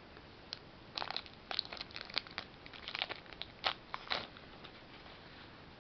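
Foil wrapper of a Pokémon trading-card booster pack crinkling as it is handled and torn open: a run of short, sharp crackles over about four seconds that stops near the end.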